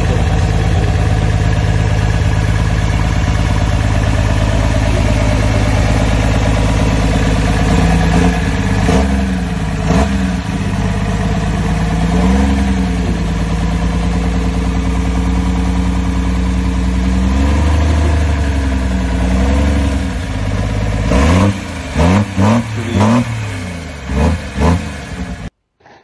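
A modified pickup truck's twin-turbocharged engine runs loudly with the hood open. It holds a steady idle for several seconds, is revved up and let back down a few times, and gets a quick run of short blips near the end before the sound cuts off suddenly.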